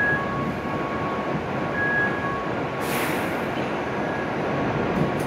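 An E7-series Shinkansen train standing at the platform with its equipment running steadily, over a faint on-and-off electronic tone in two pitches. About three seconds in comes a short, sharp hiss of released air.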